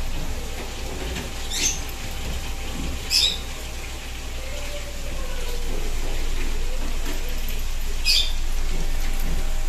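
Thick blended tomato sauce pouring and dripping through a stainless steel mesh sieve into a hot pan, a steady hiss with three brief sharp clicks, the last near the end.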